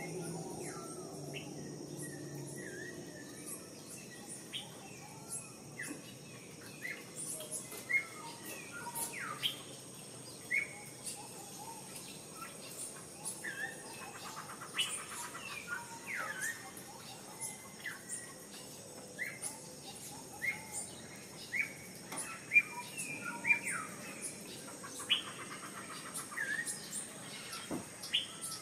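Several wild birds chirping and calling in short rising and falling notes, with a couple of quick trills, over a steady high-pitched buzz.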